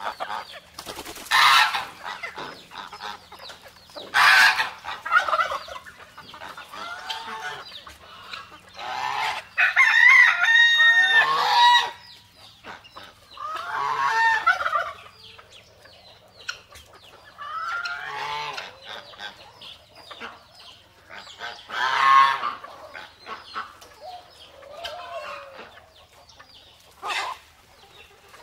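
Domestic hens clucking in short, scattered calls, with a rooster crowing once in a longer drawn-out call about ten seconds in.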